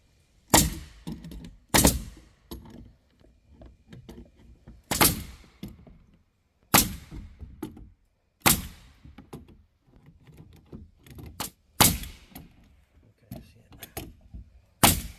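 Pneumatic nail gun firing nails from a compressor-fed air line: seven loud sharp shots at uneven spacing of one to three seconds, with smaller clicks and knocks in between.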